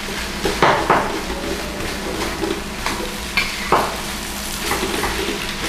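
Spatula stirring and scraping egg fried rice in a metal pan, over a steady sizzle of frying, with a few sharper clinks and scrapes of the spatula against the pan.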